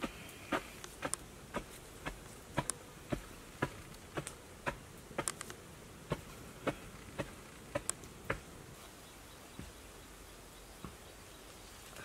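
Irregular sharp clicks and taps, about two a second, as bare hands dig and scrape at dry sandy soil. They thin out after about eight seconds.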